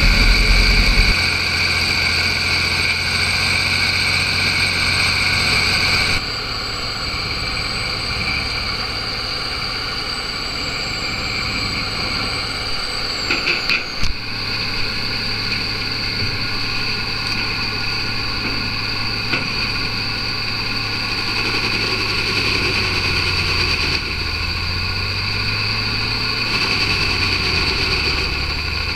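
Bandit Beast 3680 horizontal grinder running steadily, a diesel engine drone with a high machine whine over it. The sound changes abruptly about six seconds in and again around fourteen seconds, just after a brief clatter.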